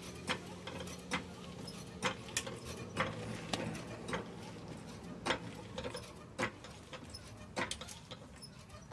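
Mechanical clicking and clanking of hand tools at work: about a dozen sharp clicks at irregular intervals over a faint steady low hum.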